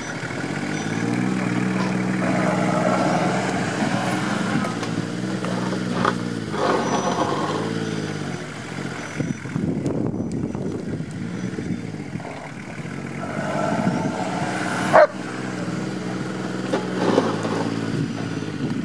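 Nissan Patrol 4x4's engine pulling at low speed under load as it crawls up a heap of loose soil, its note rising and falling with the throttle. A single sharp knock about fifteen seconds in.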